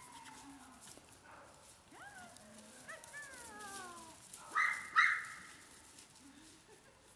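Small dog whining in rising and falling pitched cries, then giving two sharp yaps about half a second apart, with light rustling of dry leaves underfoot.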